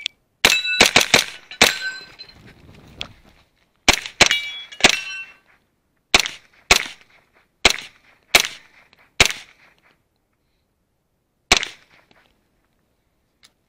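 Pistol-caliber carbine fired in fast strings, about fourteen shots: five rapid shots at the start, then groups of three, two and three, and a single last shot near the end. Brief metallic ringing follows some of the early shots, as steel targets are hit.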